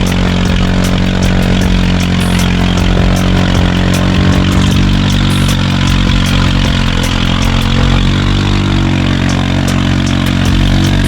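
All-terrain vehicle engine running steadily at low revs, its pitch shifting slightly about two-thirds of the way in.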